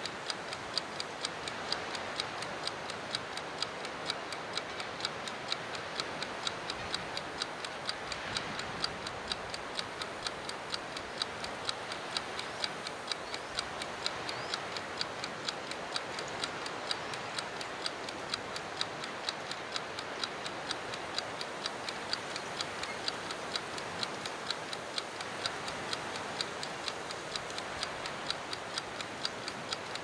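Clockwork timer of a rotating time-lapse camera head ticking steadily and fast, over a steady hiss.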